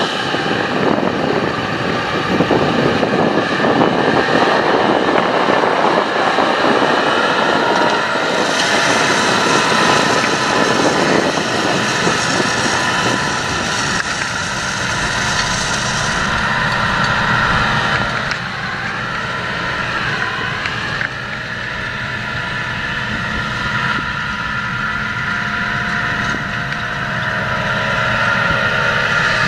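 John Deere 7230R tractor's six-cylinder diesel engine running steadily under load as it pulls a seed drill across the field, a little quieter in the second half as it draws farther away.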